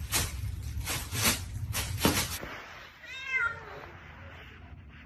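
Domestic cat giving a single meow that falls in pitch, about three seconds in. Before it comes a run of regular crackling noises, about two a second.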